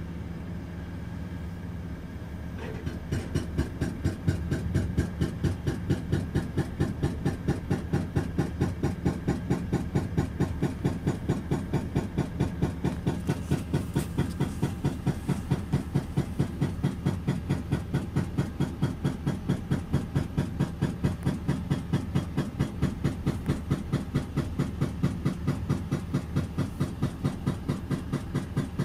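Mercedes-Benz OM 936 six-cylinder turbo-diesel of a Citaro C2 LE city bus idling at a standstill, a rough, rattling idle. About three seconds in it grows louder and takes on a steady pulsing beat of roughly three pulses a second.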